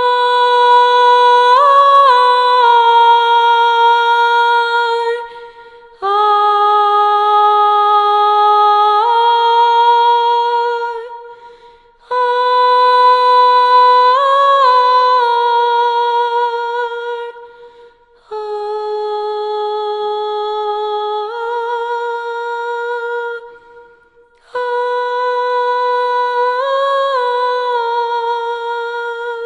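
A solo voice humming a slow melody unaccompanied, in five long held phrases of about five seconds each with short breaths between. Each phrase sits on a steady high note with a brief turn partway through.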